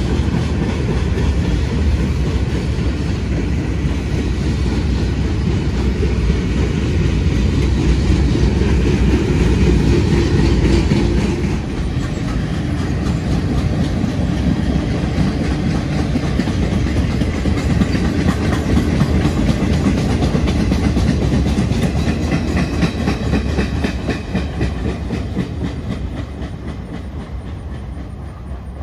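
Freight train flatcars loaded with military Humvees rolling past, steel wheels clattering on the rails. The sound fades away near the end as the last car passes.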